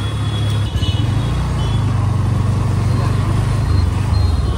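Bajaj Pulsar NS125's single-cylinder engine running steadily while riding, under a heavy low wind rumble on the microphone.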